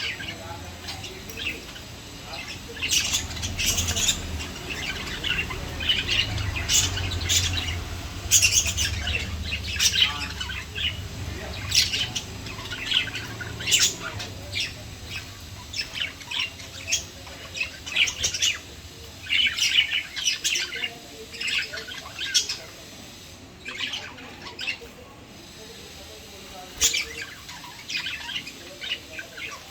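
A group of lovebirds chattering, with many short, high-pitched chirps and squawks following each other rapidly. The calls grow sparser in the last several seconds.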